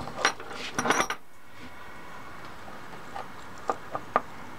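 Light metallic clicks and scraping of a screwdriver and pliers working the screw terminal on a heat gun's heating element in the first second, then four short ticks three to four seconds in as the element's metal frame and coiled tungsten wire are handled.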